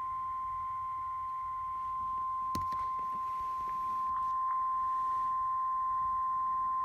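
Weather-alert warning tone of about 1050 Hz, the alarm of NOAA Weather Radio: one long, steady high tone that signals a severe thunderstorm warning is about to be read. There is a faint click about two and a half seconds in.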